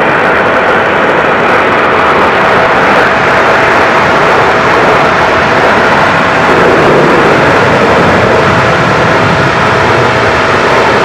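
Cessna Citation 650 business jet at takeoff power on its takeoff roll and lifting off, its twin TFE731 turbofans making a loud steady jet noise with a thin steady whine.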